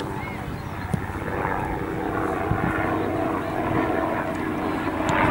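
A steady engine drone that grows gradually louder, with a single short knock about a second in.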